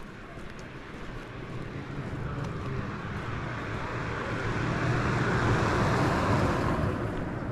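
A car passing by, its engine and tyre noise growing louder to a peak about five to six seconds in, then fading.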